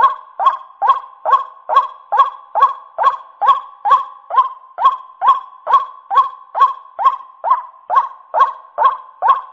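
White-breasted waterhen (ruak-ruak) calling: a harsh, honking note repeated at an even, steady pace, a little over two calls a second, played as a bird-trapping lure call.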